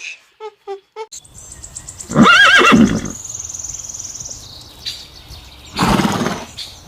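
Horse neighing: one loud whinny with a quavering, shaking pitch about two seconds in, followed by a loud breathy blow near the end.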